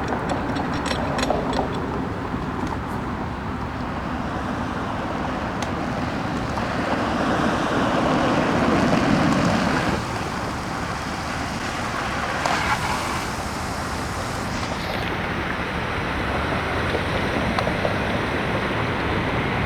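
Fire engine pumping water through a hose line that has just been charged: a steady rushing sound, swelling for a few seconds midway.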